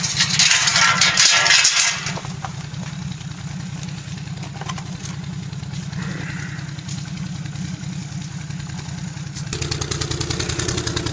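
ATV engine idling steadily, with a loud rush of noise over the first two seconds. About nine and a half seconds in, the engine note deepens and grows a little louder.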